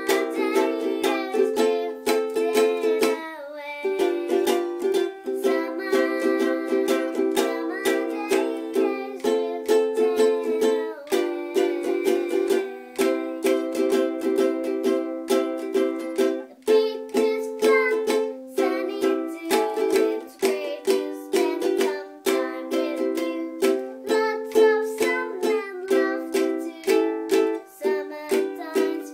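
Ukulele strummed in a quick, steady rhythm, its chords changing every two seconds or so.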